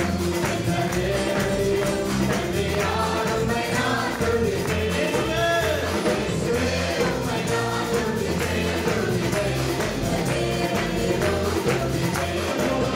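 A live Christian worship band playing, with electric bass and keyboards under a man singing the lead into a microphone.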